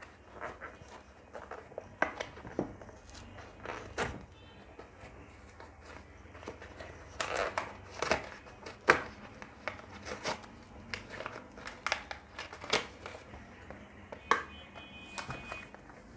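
A paper packaging box being opened by hand: irregular rustling, crinkling and scraping of cardboard and paper, with scattered sharp clicks at uneven intervals.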